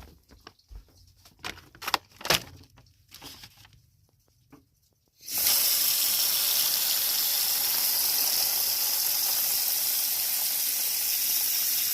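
A few knocks and rustles of a plastic bag being handled. Then, about five seconds in, hot water starts running from a kitchen faucet in a steady gush into the bag of frozen sauce, to thaw it. The water runs for about seven seconds.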